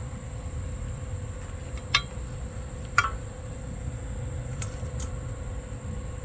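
Two sharp metallic clinks about a second apart, then two fainter ticks, over a steady low hum and a thin high whine.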